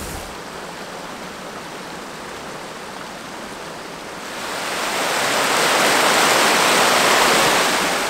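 Rushing water of a muddy river, with a small stream of runoff pouring in over the bank. The steady hiss of the water swells louder about four seconds in and eases a little near the end.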